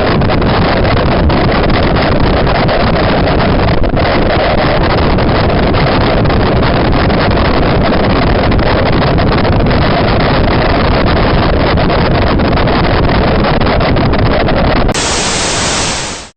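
Loud, steady static hiss. About fifteen seconds in it turns brighter, then fades out quickly.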